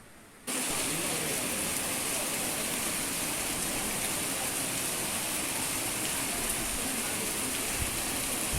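Rain falling steadily, a continuous even hiss that starts abruptly about half a second in.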